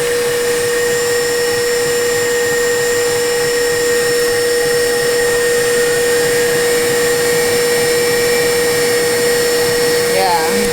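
Two KitchenAid stand mixers, a Professional HD and a Pro 5 Plus, running together at top speed 10, giving a steady, high motor-and-gear whine. The Pro 5 Plus is the louder of the two.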